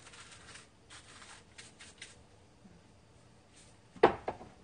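A sesame shaker is shaken over a bowl, giving a soft hiss and a few short rattles in the first two seconds. A single sharp knock about four seconds in is the loudest sound.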